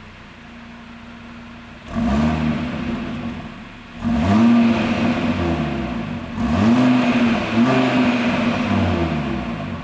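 2020 Audi RS Q3's turbocharged five-cylinder engine idling, then revved four times in quick blips, each rising and falling back, heard at the tailpipes. The exhaust is stock, in Comfort mode with its flaps closed.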